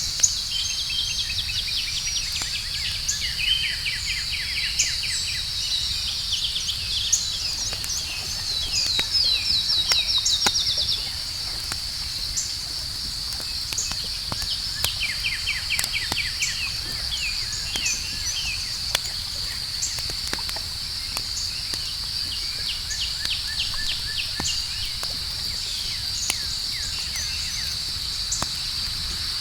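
Outdoor campfire crackling with scattered sharp pops, over a steady high-pitched chorus of night insects and bursts of rapid chirping trills.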